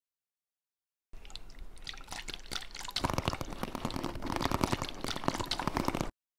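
Wet ASMR mouth sounds: a fast, dense run of soft lip and tongue clicks close to the microphone, starting about a second in, thickening about three seconds in, and cutting off suddenly just before the end.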